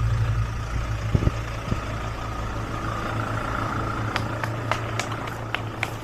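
Vehicle engine idling with a steady low hum, with a few light clicks.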